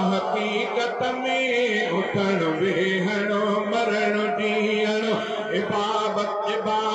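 A man's voice chanting a nazm (devotional poem) in long, drawn-out melodic lines with held, wavering notes, amplified through microphones.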